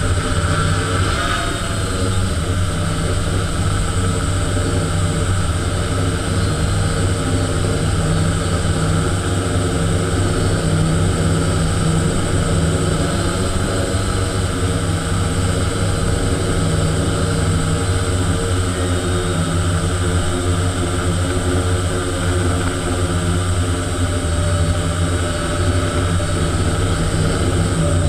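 Motors and propellers of a small remote-controlled aircraft, heard from the camera mounted on it, running steadily as it climbs and flies.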